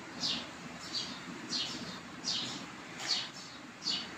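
Broom sweeping a dirt yard floor, brushing up dung, straw and dry leaves in regular swishing strokes, about six strokes under a second apart.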